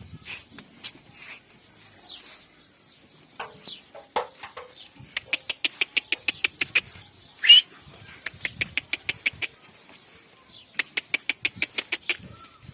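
Bird calling in rapid runs of sharp clicks, about eight a second, in three bouts, with one louder short rising call between the first two runs. A few shorter, lower animal calls come a few seconds in.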